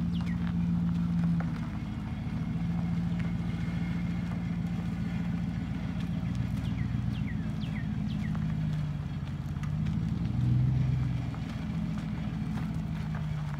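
Pickup truck engine running slowly under load as it tows a car along a dirt track, a steady low hum whose pitch drops for a while twice. Faint short high chirps come through around the middle.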